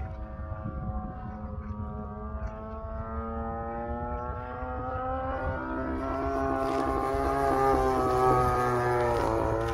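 Radio-controlled aerobatic airplane's engine running. Its pitch sags as the plane climbs straight up, then rises and grows louder as it comes around on a low smoke pass. The pitch drops as it flies by near the end.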